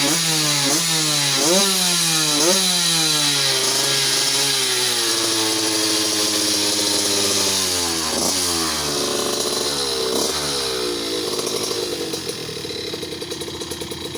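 Yamaha F1ZR two-stroke moped engine through an aftermarket 'knalpot udang' exhaust, revved in quick blips about twice a second, then held steady. Two more revs come around the middle, and it settles to a lower, pulsing idle near the end.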